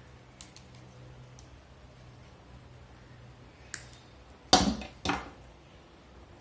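Pliers cutting the two unused wires of a motorcycle alarm's wiring harness: a few light clicks, then two loud snips about half a second apart, each with a short rattle after it.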